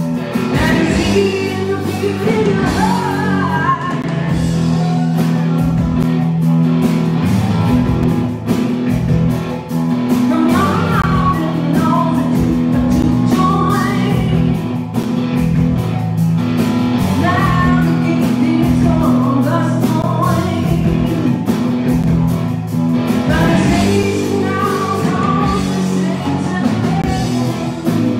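Live rock band playing: a woman sings over electric guitar, bass guitar and drums. The vocal phrases come and go over steady, sustained chords.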